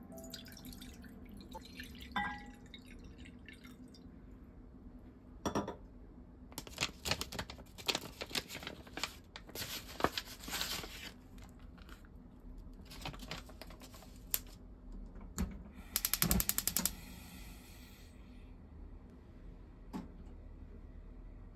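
Water poured from a measuring cup into a ceramic donabe pot, then crinkling of a plastic packet and scattered light knocks. About a second of rapid clicking comes two-thirds of the way through, and a single soft knock near the end as the pot's lid goes on.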